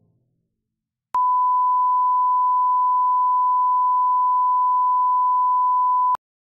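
Colour-bar test tone: a single steady 1 kHz reference beep that starts about a second in, holds for about five seconds and cuts off abruptly, with a click as it starts and stops.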